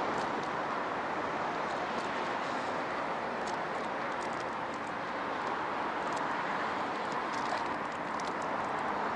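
Steady outdoor background noise: an even hiss with scattered faint ticks, with no single sound standing out.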